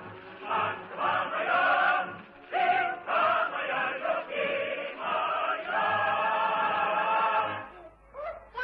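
A choir singing a march-like song in phrases with short breaks between them, over a low regular beat. The singing stops about three quarters of a second before the end.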